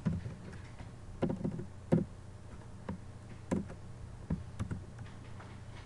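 Computer keyboard keystrokes: about ten irregular, separate taps as code is typed, the sharpest about a second and two seconds in, over a steady low electrical hum.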